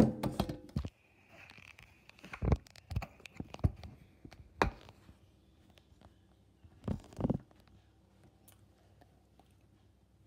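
Knocks and clunks of a metal bowl of strawberries being handled in a stainless steel sink: a clatter at the start, then single knocks every second or so and a quick pair near the end.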